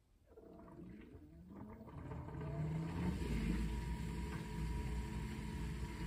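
LG LDFN454HT QuadWash dishwasher starting to wash: a motor whine gliding in pitch as the pump spins up, then a steady rush of water spraying inside the tub that keeps growing louder.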